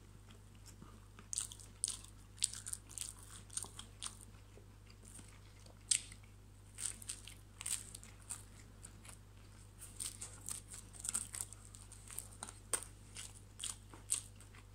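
A person biting into and chewing a slice of pepperoni pizza: irregular small clicks and smacks of the mouth, a few each second.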